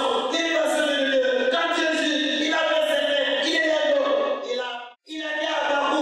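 A man preaching into a handheld microphone, his voice carried by the hall's sound system; it cuts out briefly about five seconds in.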